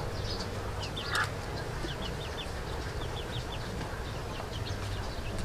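Birds chirping: short high falling chirps in quick runs of three or four, over a steady low background noise, with one brief louder sound about a second in.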